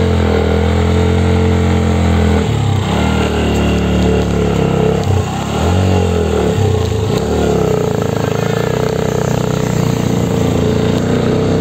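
Bajaj Pulsar NS 125's single-cylinder engine pulling hard up a steep hill with two riders aboard. Its revs drop and climb back three times in the first seven seconds, then hold steady.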